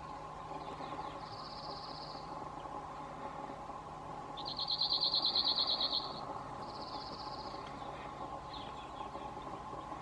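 Male cirl bunting singing: a fast trill of evenly repeated notes on one high pitch, loudest once for about a second and a half around the middle, with fainter trills before and after.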